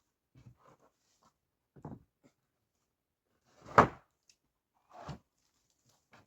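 A handful of separate knocks and thuds with quiet between them, the loudest a sharp knock about four seconds in.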